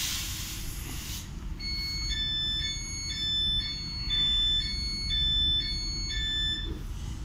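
Regional train's door-closing warning: a two-tone electronic beep alternating high and low about twice a second for some five seconds, starting after a hiss in the first second, over the low rumble of the standing train.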